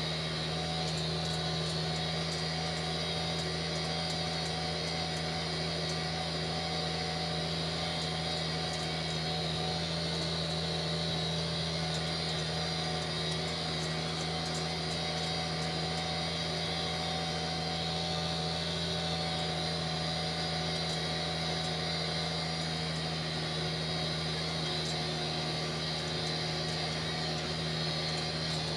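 Tractor engine running at a steady working speed while it drives a grass tedder, a constant drone with a steady hiss above it.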